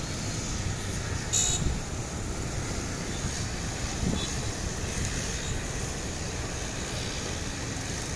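Steady road traffic rumble, with a short high-pitched beep about a second and a half in.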